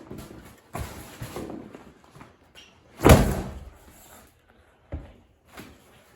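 A series of thuds and knocks: one about a second in, a loud bang about three seconds in that rings on for about a second, then two smaller thuds near the end.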